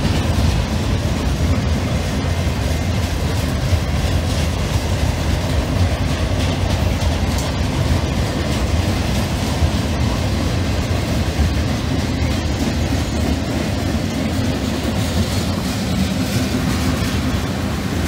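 CSX mixed freight train passing close by: a steady low rumble of boxcars and tank cars rolling on steel wheels, with a few sharp clicks from the wheels on the rails.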